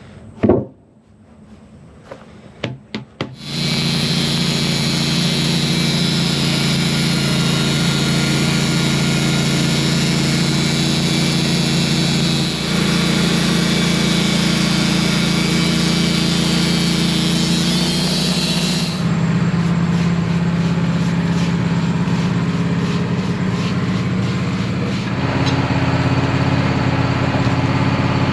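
A sudden thump and a few clicks, then a Wood-Mizer band sawmill comes up to steady running about three seconds in. A loud high hiss rides over the engine for about fifteen seconds, the band blade cutting a pine log, and stops sharply, leaving the engine running on.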